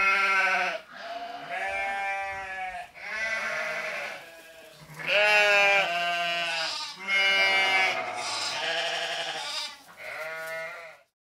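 Donkey braying: a long run of drawn-out, pitched calls, each a second or two long, with short breaks between them.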